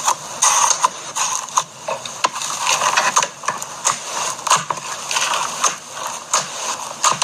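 Crunchy slime being squeezed and worked by hand, giving a dense, irregular run of crackles and pops.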